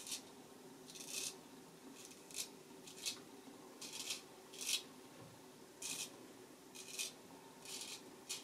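Straight razor scraping stubble through shaving lather: about eleven short strokes, roughly one or two a second, with brief pauses between them.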